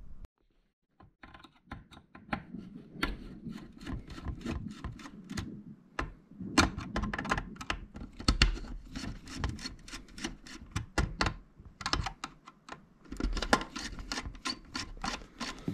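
Hands working the stripped mains cable and the screw terminal block of a 240 V to 12 V converter: irregular light clicks, taps and rubbing, starting about a second in.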